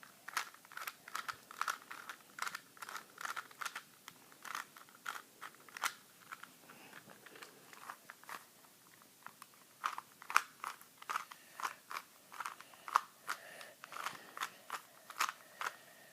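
Plastic Rubik's cube turned by hand, its layers clicking a few times a second as a move sequence is repeated to bring the cube back to solved. The clicks thin out between about six and a half and nine and a half seconds in, then pick up again.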